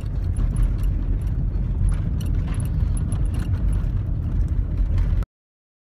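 Steady low rumble of a car heard from inside the cabin while driving, engine and road noise, with faint light ticks. It cuts off suddenly about five seconds in.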